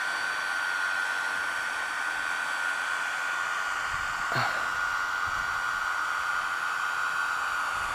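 High-powered torch's cooling fans running, a steady whirr with a high, constant whine. A small knock about four seconds in.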